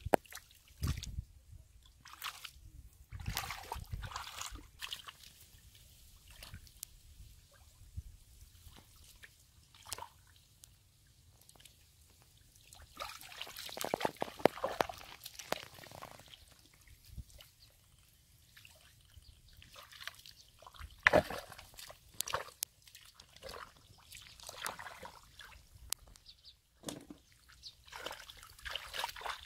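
Hands and bare feet sloshing and squelching through shallow muddy water, in irregular bursts of splashing with a few sharp slaps, as someone gropes in the mud for fish.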